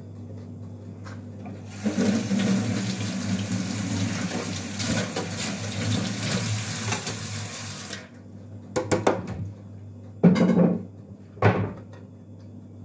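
A kitchen tap runs steadily for about six seconds and is shut off suddenly. A quick rattle and two loud knocks follow.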